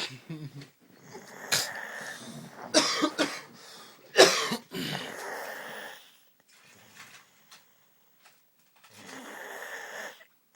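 A woman snoring in her sleep: a run of irregular, loud snores over the first six seconds, the loudest about four seconds in, then a pause and one more snore lasting about a second near the end.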